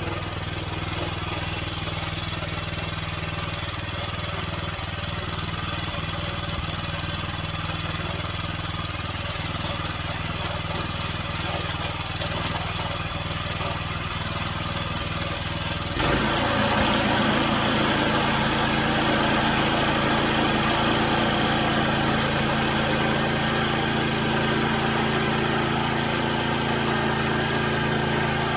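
Gas engine of a Norwood Frontier OS23 portable bandsaw mill running steadily. About halfway through the sound suddenly grows louder and takes on a steady hiss, which fits the band blade entering the poplar log and sawing.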